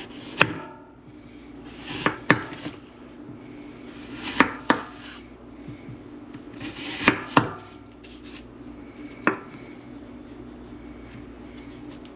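A knife slicing through raw potatoes and knocking down onto a wooden cutting board. About eight sharp knocks come every couple of seconds, mostly in quick pairs, over a steady low hum.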